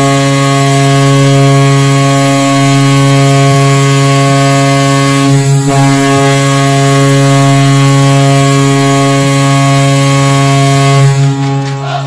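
Tampa Bay Lightning's 2016 arena goal horn sounding one long, deep, steady blast with a brief dip about halfway through. It stops about eleven seconds in, as the goal music starts.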